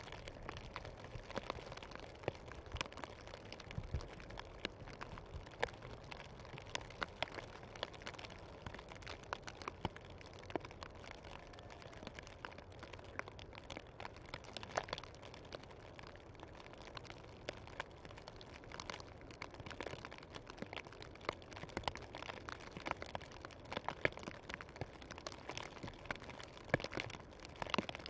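Heavy snowfall ambience: a faint steady hiss with frequent irregular soft ticks and crackles of snow landing.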